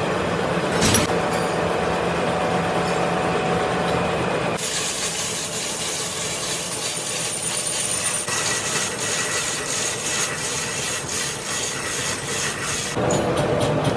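Metalworking machinery running steadily, its sound changing abruptly three times, with a fast regular ticking in the later part.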